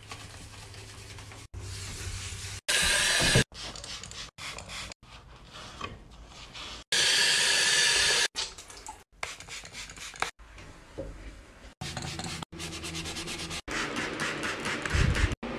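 A quick run of cleaning sounds chopped into short pieces: a scrubber or sponge rubbing hard on a bathroom surface, and a tap running over a cloth being rinsed about seven seconds in.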